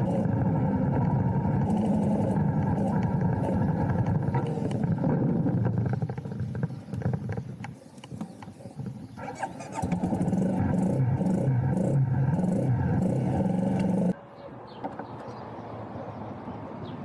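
Honda CRF250 Rally's single-cylinder four-stroke engine running steadily at idle. It drops away for a few seconds around the middle and comes back, then cuts off abruptly near the end, leaving only quiet background.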